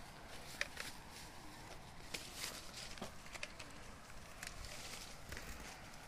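Faint footsteps and scattered knocks and clicks on sawn wooden planks, with the chainsaw switched off.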